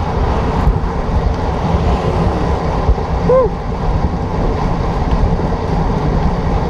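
Wind rushing over the microphone of a camera on a bicycle ridden fast, a steady low rumble, with a short 'woo!' shout about three seconds in.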